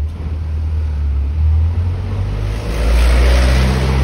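Low continuous rumble of a distant fireworks barrage, growing louder and hissier about two and a half seconds in.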